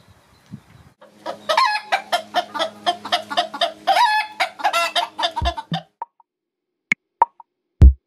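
Austrian Bantam (Steinpiperl) chickens clucking and cackling in a rapid run of short repeated calls, starting about a second in and breaking off near six seconds. Sparse plucked and knocked music notes follow.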